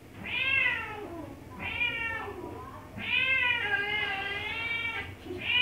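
Cat meows played back through the computer's speakers: three meows, the third long and wavering, and a fourth beginning near the end. The sleeping kitten is not the one calling; the recording is used to wake and puzzle it.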